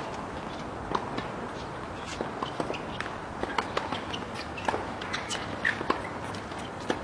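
Footsteps and scattered light knocks on a tennis court, irregularly spaced, over a steady background hiss.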